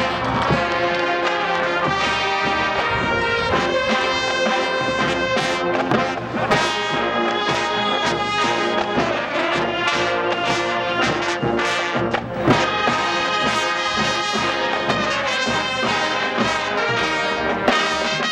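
Marching band playing, its brass section sounding sustained chords over percussion, with sharp drum hits about six and twelve seconds in.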